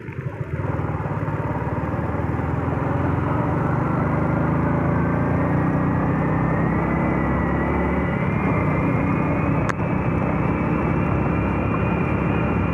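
A motorbike's engine running while riding, under steady wind rush. Its whine rises slowly through the second half as the bike gathers speed, with a single faint click near the end.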